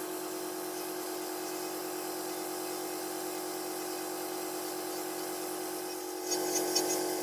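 Electric pedicure drill running steadily with a thin whine, its ball-head burr grinding the last hard callus remnants from over a corn on the toe tip. The sound grows louder and scratchier near the end.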